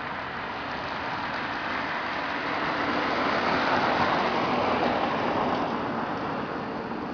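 A car driving past, growing louder to a peak around the middle and fading away again.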